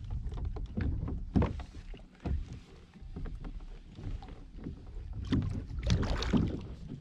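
A hooked fish splashing and thrashing at the water's surface beside a plastic fishing kayak, with irregular knocks and thumps; the loudest flurry of splashing comes about five to six and a half seconds in.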